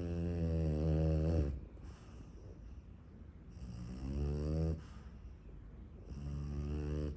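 French bulldog puppy snoring in its sleep: three low snores, one per breath, about two and a half seconds apart. The owner takes such snoring as a possible early sign of brachycephalic airway strain.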